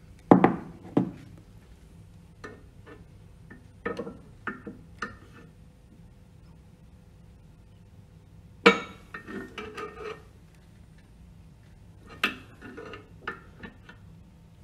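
Steel hand tool clinking and knocking against the pump shaft and shaft seal parts while the seal is being prised loose. The strikes are short, irregular and metallic, coming in small groups with quiet gaps.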